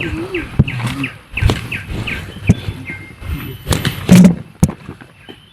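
Bird chirping in a quick series of short repeated calls, over scattered sharp clicks and knocks such as footsteps on a trail. A brief loud voice-like call cuts in about four seconds in.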